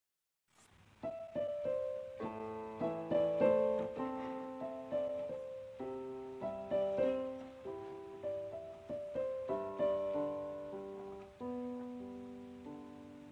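Background piano music: a gentle melody of single notes and chords, each note struck and fading. It starts about half a second in, after a brief silence.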